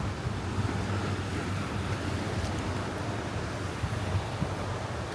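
Steady wash of surf from a choppy sea breaking on the beach, with wind on the microphone.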